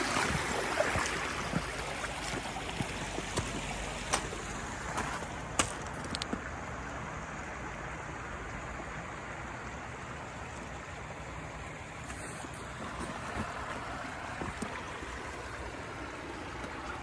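Shallow spring water running and rushing over rocks, loudest at the start and easing to a steady fainter rush after a few seconds. A few sharp clicks in the first six seconds.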